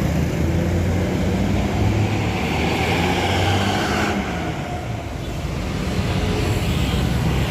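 Large diesel bus engine running as a bus drives out past at close range, with a low steady hum under road and engine noise. It grows louder about two seconds in and falls back after about four seconds.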